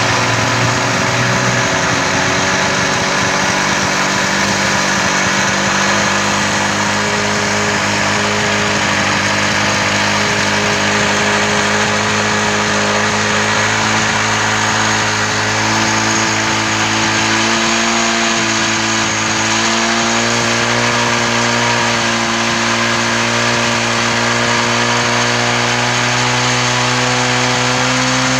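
Hero Honda CD100 SS motorcycle's single-cylinder four-stroke engine running steadily, with small shifts in engine speed over the second half.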